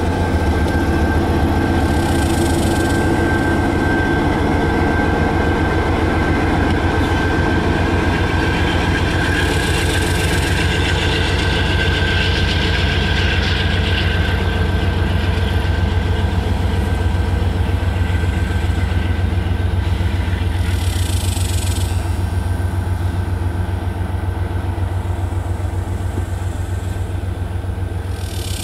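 Manifest freight train of tank cars rolling past close by: a steady rumble of steel wheels on the rails over a low drone, with a thin high wheel squeal through the first half. The sound eases slightly near the end.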